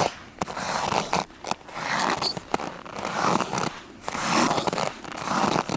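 Footsteps crunching in cold snow: about five steps at an even walking pace, each a grinding crunch lasting about half a second.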